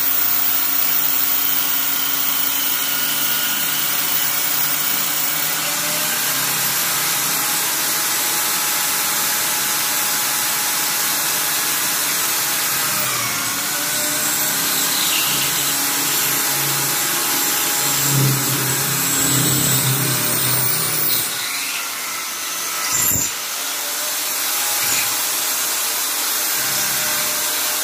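Maktec corded electric drill running steadily and slowly, its bit grinding through a ceramic mosaic wall tile. The level dips briefly and there is a sharp knock about 23 seconds in.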